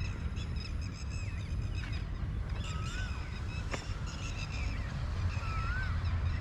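Birds calling, several chirping together, with one whistle that rises and falls repeated about every three seconds, over a steady low rumble. A single sharp click sounds about halfway through.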